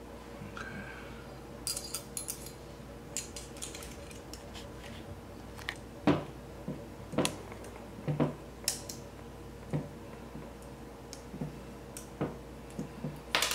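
Small steel pistol parts clicking and tapping as a Beretta Pico slide is handled with a punch while a pin is worked into place: a dozen or so irregular light metallic clicks, the sharpest about six and seven seconds in.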